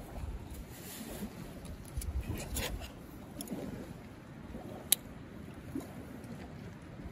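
Light wind gusting on the microphone, with a metal spoon scraping and clinking against a metal pan; the sharpest clink comes about five seconds in.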